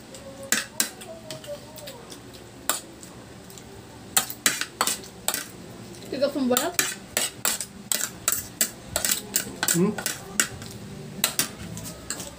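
Metal spoons and forks clinking and scraping on ceramic plates while eating: many quick, irregular clicks that grow denser after the first few seconds.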